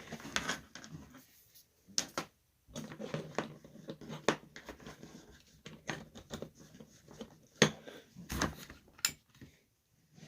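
Irregular light clicks and knocks of small objects being handled, with some fainter low murmuring sounds between them.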